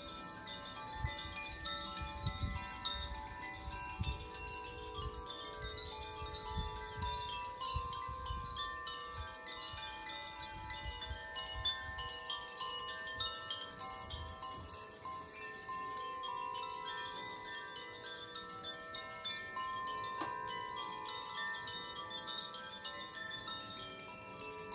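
Hand-held tuned wind chimes of the Koshi/Irohana kind, gently swung and played continuously. Many overlapping bell-like tones ring on and blend into a shimmering wash. A low rumble runs under them through roughly the first half.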